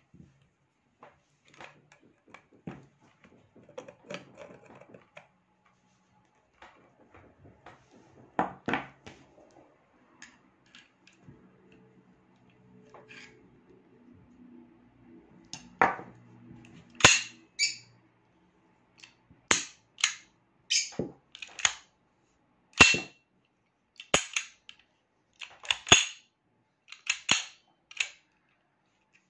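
Kimar pistol being handled: soft rubbing and handling at first, then a quick series of sharp clicks and clacks of the slide and its parts being worked through the second half.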